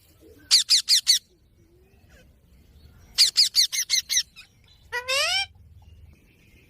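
Indian ringneck parakeet squawking in quick runs of high-pitched calls, each sliding down in pitch: four fast calls, then about seven in a row a couple of seconds later, and one longer call near the end.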